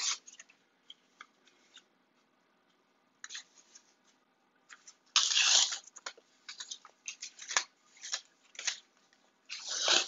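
Shrink wrap and sublimation transfer paper crinkling and tearing as they are peeled off a freshly pressed tumbler. Mostly quiet for the first three seconds, then a run of short rustles and crinkles, the loudest about five seconds in.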